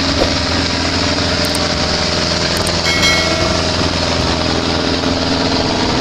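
Diesel engines of large farm tractors and a forage harvester running steadily under load, a continuous even drone.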